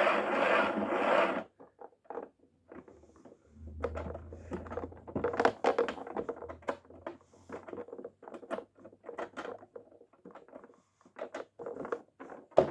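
Toy washing machine's small motor running with a loud whirr and rattle, cutting off suddenly about a second and a half in. After that, scattered light clicks, scratches and rattles of the toy and its contents, with a brief low hum a few seconds in.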